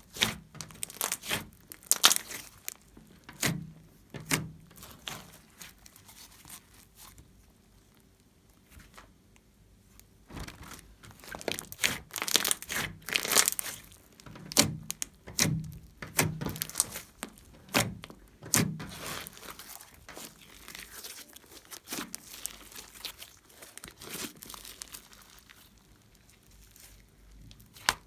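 Thick pink-and-blue slime being squeezed, folded and pressed by hand on a tabletop, giving irregular sticky crackles and sharp pops. They come in busy spells with sparser stretches between.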